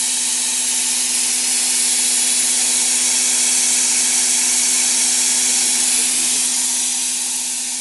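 Abrasive blasting nozzle firing heated compressed air and corundum grit at a rotating steering rack shaft. It makes a loud, steady hiss with a constant low hum beneath it. This is the light abrasive pass that roughens the worn seal seat so the sprayed metal will bond.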